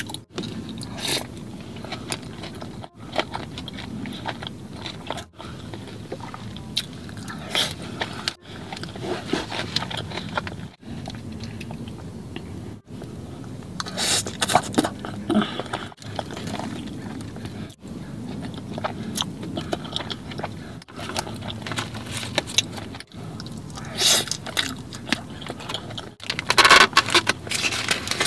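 Close-miked eating of fried chicken wings and fries: bites, chewing and wet mouth sounds, with louder crunchy bites now and then. The sound breaks off briefly every two or three seconds.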